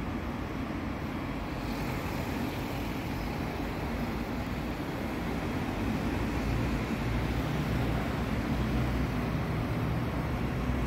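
Steady low rumble of city traffic, a continuous hum of vehicles on nearby roads that swells a little in the second half.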